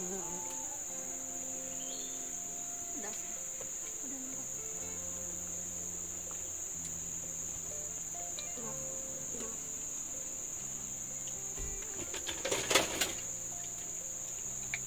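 Steady high-pitched drone of forest insects, with a short burst of crackling clicks near the end.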